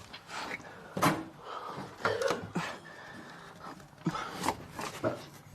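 A handful of sharp knocks and bumps, about five spread over the few seconds, with a brief bit of voice between them.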